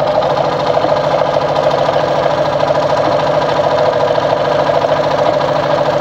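Brother Pacesetter ZU2-B605 electric sewing machine running steadily at speed, stitching one of its built-in decorative patterns.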